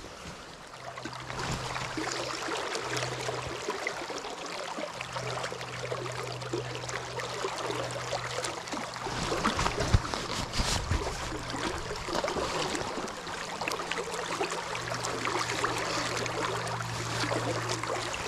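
River current rushing and splashing around a wading angler's legs, with a faint low steady hum underneath that fades in and out.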